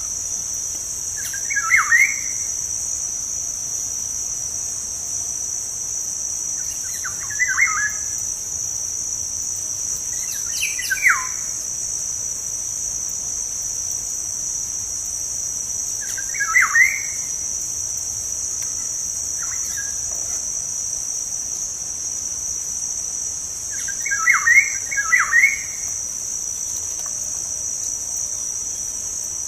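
Black-naped oriole giving short fluty whistled phrases that drop in pitch, five or six times, the last a quick run of three notes. A steady high cricket trill runs underneath.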